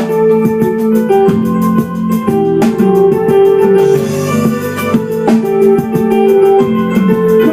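A band playing an instrumental passage with no vocals: sustained keyboard chords over a steady drum beat.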